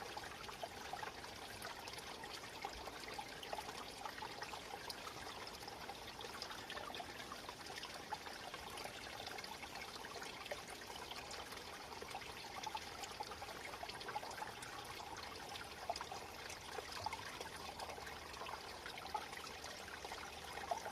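Small stream trickling and babbling steadily over stones, with many small splashes and gurgles.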